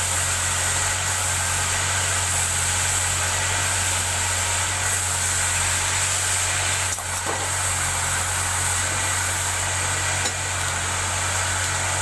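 Wood lathe's electric motor running steadily with a low hum and a hiss, with a short knock about seven seconds in and a click about ten seconds in.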